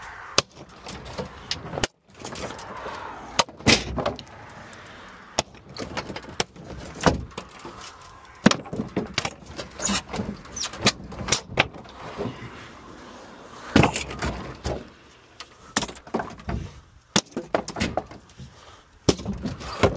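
Sledgehammer smashing old white particleboard cabinets in a steel trailer: repeated, irregular cracks and crunches of splintering board, with thuds as pieces land.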